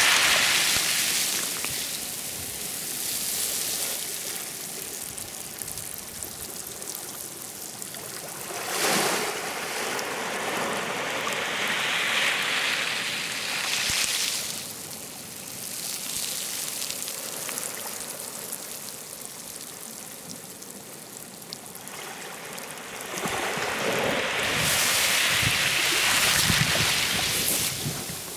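Sea surf: waves rushing in and breaking, the wash swelling and ebbing several times.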